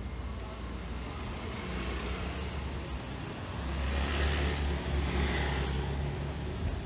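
A road vehicle driving past on the street. Its engine and tyre noise grows, peaks about four to five seconds in, then fades, over a steady low traffic rumble.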